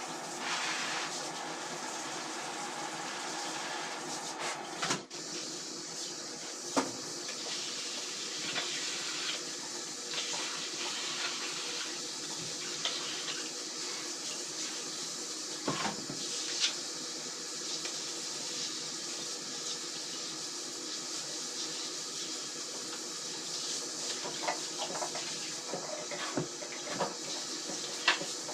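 Water running steadily, as when rinsing under a tap, with a few knocks and clatters.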